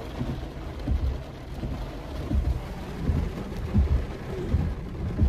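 Heavy rain pelting the car's roof and windows, heard from inside the cabin as a steady hiss with low thuds every second or so.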